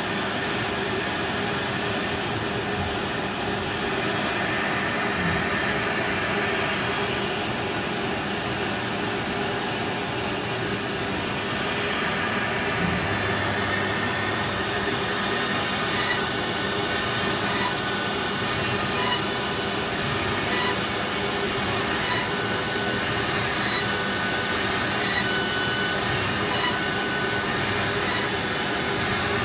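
LPKF ProtoMat S62 PCB milling machine running with a steady rushing noise while drilling the starting holes for the 2 mm end mill into a copper-clad board. From about halfway through, short high tones repeat roughly once a second as it works through the holes one after another.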